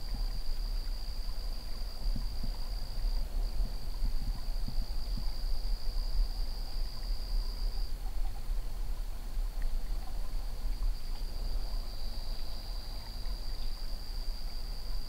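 An insect trilling on one steady, high pitch, with a short break about three seconds in, over a low rumble.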